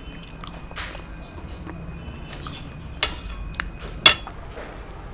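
Hand eating from a stainless steel plate: fingers scraping and pressing food on the metal, with two sharp clinks against the plate about three and four seconds in, the second louder and ringing briefly.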